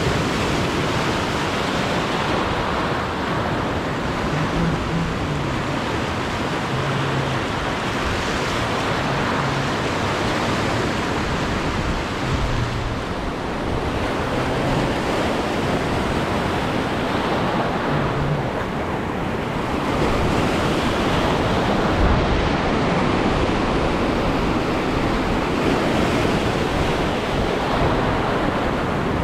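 Surf washing over a shallow coral reef, a steady rush of water, with wind buffeting the microphone.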